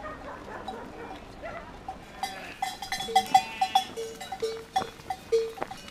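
Bells on a moving flock of sheep clanking and ringing, starting about two seconds in, with sheep bleating.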